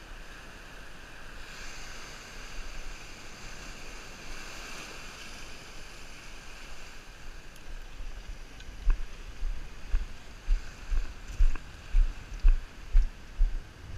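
Steady wash of water and wind around a small fishing boat. About halfway through, a run of regular low thumps starts, roughly two a second.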